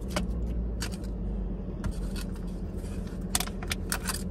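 Small plastic parts and paper packaging handled by hand: scattered clicks and rustles, the sharpest a little after three seconds in and around four seconds in, over a steady low hum inside a car cabin.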